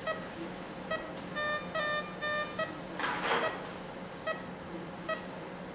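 Operating-room patient monitor beeping at a steady pulse-like pace, about one short electronic beep every 0.85 s. About a second and a half in, a second electronic tone at another pitch sounds three times in quick succession, and about three seconds in there is a brief hiss.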